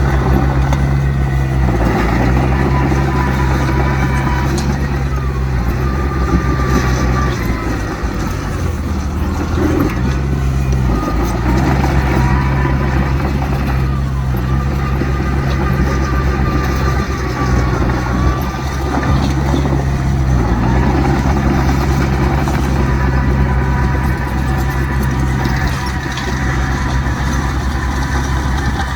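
Heavy diesel engine of earthmoving machinery running loud and continuously, its note dipping and picking up again several times, with a higher whine above it.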